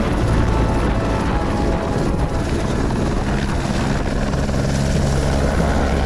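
Single-engine helicopter lifting off and flying away, its rotor and turbine running loud and steady.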